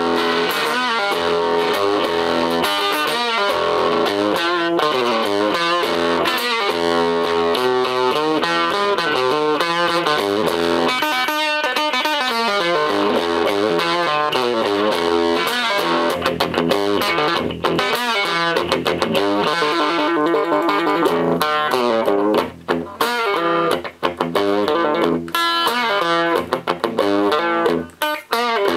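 Electric guitar played through a small DIY MTB-1E tube amplifier built around 6EB8 tubes, with continuous picked notes and a few short breaks near the end.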